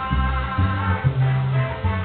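Baby bass (electric upright bass) plucking a salsa bass line over a salsa recording: a run of low notes, one held longer in the middle.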